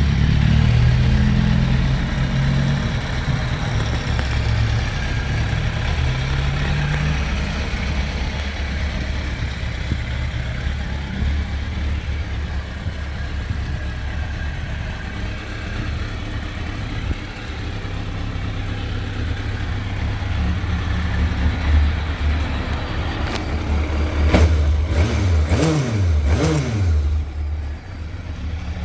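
Kawasaki Z750 S inline-four engine running at idle through its stock exhaust, then revved in several quick blips near the end.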